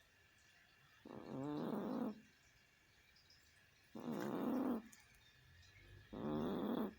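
Cat snoring: three snores about two and a half seconds apart, each lasting about a second.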